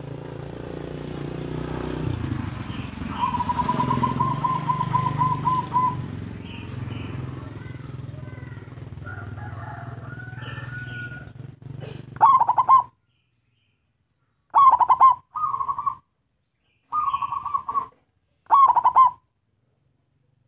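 Zebra dove (perkutut) cooing: short, clipped coo phrases about a second apart in the second half, each cutting off sharply into silence. Before that, a steady low rumble runs with a rapid, even trill over it.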